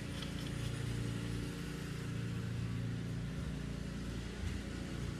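A steady low mechanical hum, like a motor running in the background, holding an even pitch.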